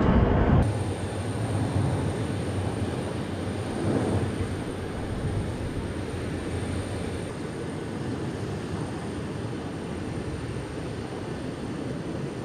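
Steady rushing noise of jet aircraft in flight, a low even drone that drops abruptly in level about half a second in and then holds steady.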